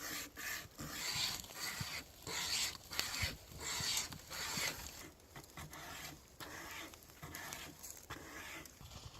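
Wire saw pulled back and forth through a small tree trunk: a rhythmic run of rasping strokes, about one and a half a second, growing weaker in the second half.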